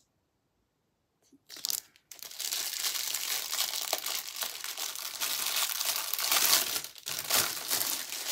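Thin clear plastic wrapping crinkling as it is worked open by hand to get a round plastic soap box out: a short rustle about a second and a half in, then steady crinkling from about two seconds in.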